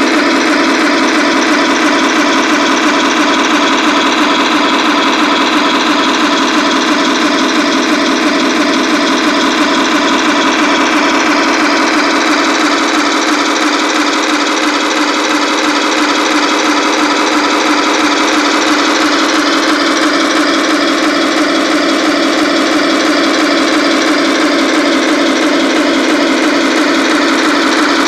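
Simulated tank engine idling steadily, played by the sound unit of a Tamiya 1:16 scale RC Tiger I through its small built-in speaker, with little deep bass.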